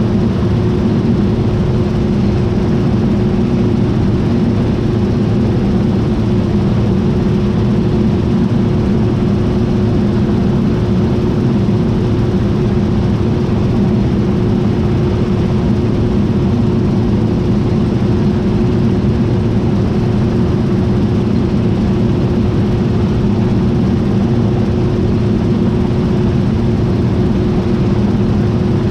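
John Deere T660i combine harvester running steadily: a constant, loud machine drone with a steady hum that holds one pitch throughout.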